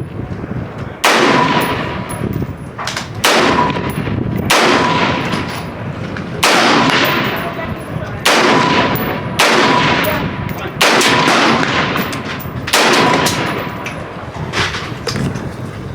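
Gunshots at an outdoor firing line: about nine loud shots spaced one to two seconds apart, each followed by a long echo, with fainter shots in between.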